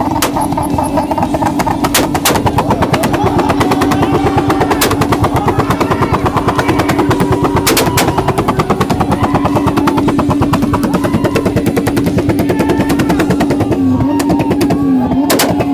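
Turbocharged car engine running with anti-lag, its exhaust firing a rapid, unbroken string of pops and crackles, with several louder bangs among them. A steady humming tone runs underneath and wavers near the end.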